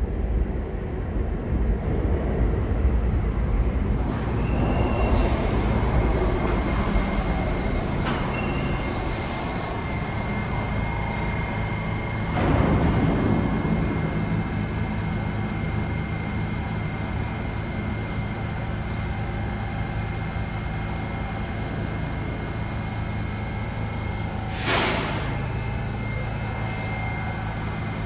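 New York City Subway R68-family train running through an underground station: a steady low rumble with a thin, steady, high-pitched wheel squeal, a louder surge a little before halfway, and several short hisses of air.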